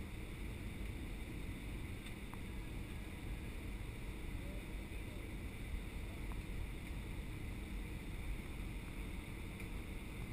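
Steady cabin noise of an Airbus A319 on final approach, heard from a window seat beside the wing: an even rumble of jet engine and rushing air.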